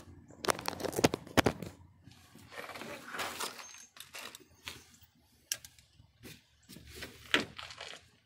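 Handling noise: scattered clicks and knocks with rustling and scraping, from hands and tools working beneath a car.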